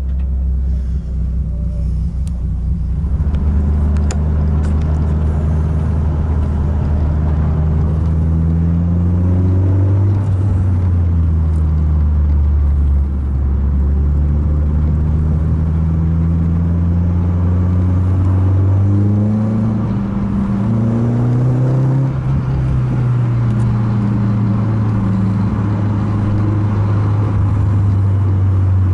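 Renault Clio 2 RS's 2.0-litre four-cylinder engine running under way, heard loud and low. Its note climbs slowly and drops back several times.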